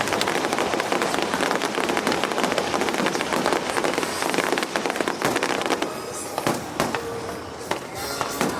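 Aerial fireworks crackling: a dense run of rapid small pops and crackles that thins out about six seconds in.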